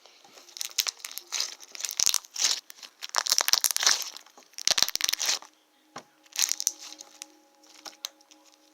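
Slime being squeezed and stretched by hand, crackling and popping in a string of short bursts with brief pauses between them.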